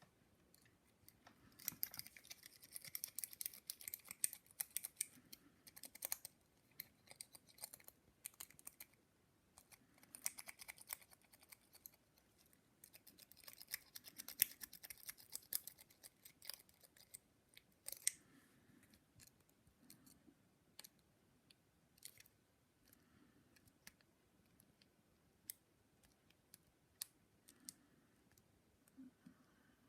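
Lock-pick rake worked in and out of a padlock's keyway: faint, quick metallic clicking and scratching as it rakes over the pins, in dense bursts of several seconds during the first half, then sparser single clicks.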